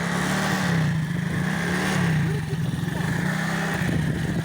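Spark 125 motorcycle engine revving up and down, then dropping back to a steadier idle about halfway through.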